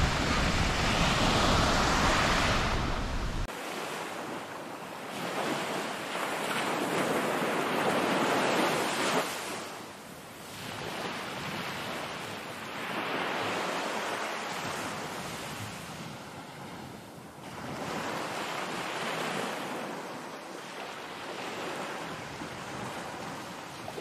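Small waves washing up on a sandy beach, the surf swelling and fading about every six seconds. Wind rumbles on the microphone for the first few seconds, then stops.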